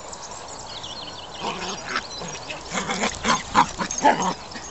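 Dog barking in a quick run of short, sharp yaps, loudest near the end.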